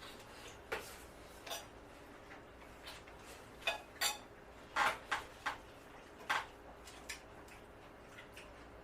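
Cutlery clinking and tapping against plates and bowls while eating, about ten light, irregular clicks with a cluster in the middle.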